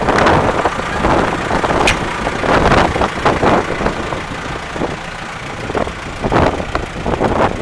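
JCB 3CX backhoe loader's diesel engine running loudly, rising and falling in irregular surges, with a single sharp clank about two seconds in.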